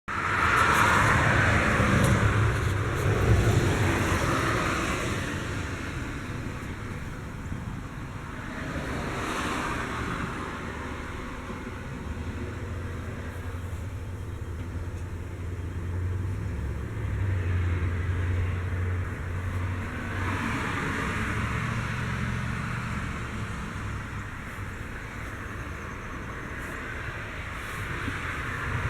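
Road traffic: cars passing one after another, each swelling and fading over a few seconds, over a steady low rumble.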